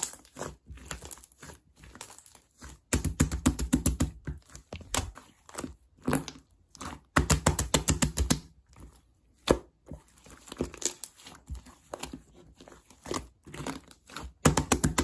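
Hands squishing and pressing a soft, floppy slime. It gives off bursts of rapid, sticky little clicks several times, with quieter squelches in between.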